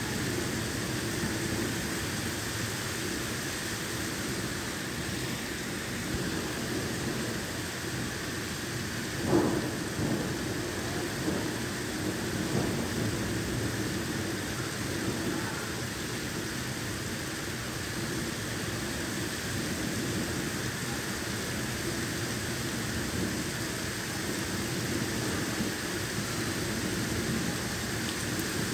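Heavy thunderstorm rain pouring steadily onto a wet street and pavement, with one sudden short louder sound about nine seconds in.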